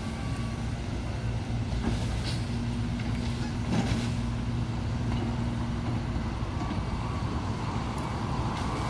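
Heavy diesel engine of a demolition excavator running steadily, with a few faint knocks about two and four seconds in.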